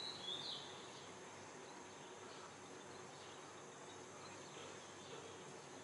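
Faint steady room tone: a quiet hiss with a thin, steady high whine, and a few short high chirps in the first half second.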